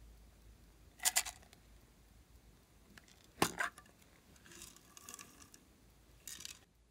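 Hard plastic heart-shaped makeup case handled over a glass slime dish: a sharp click about a second in and a louder knock about three and a half seconds in, then light rattling and a short clatter near the end.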